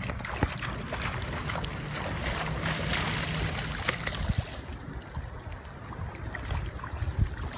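Shallow water sloshing and splashing against shoreline rocks as a hooked fish thrashes at the surface, with sharp splashes about half a second in, about four seconds in and near the end, over low rumbling wind noise on the microphone.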